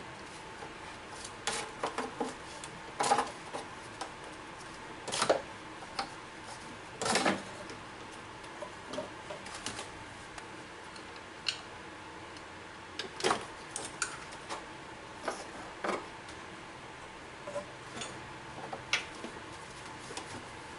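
Irregular sharp clicks and light knocks of hand tools on metal parts, a dozen or so spread unevenly over a faint steady hum.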